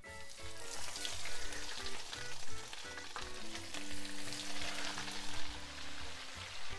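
Breaded fish fillets sizzling in hot peanut oil and melted butter in a skillet as they are laid into the pan one after another.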